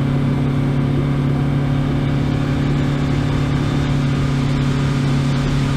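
Boat's outboard motor running at a steady cruising speed, a constant low engine note over rushing wind and water noise.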